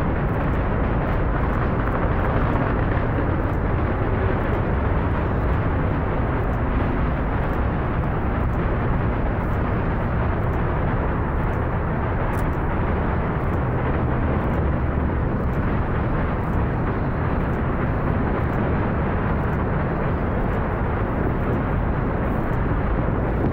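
The four RS-25 main engines of the SLS core stage firing, heard from afar: a loud, steady, deep rumble with a faint crackle on top.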